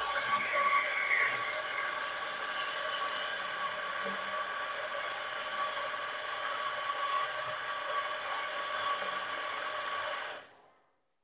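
Coffee grinder motor running steadily with a whirring hiss as ground coffee is dosed into the portafilter, with a few faint light knocks. The sound cuts off abruptly near the end.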